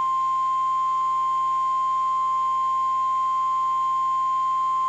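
NOAA Weather Radio 1050 Hz warning alarm tone: one steady, unbroken high tone. It is the alert that announces a warning broadcast, here a tornado warning.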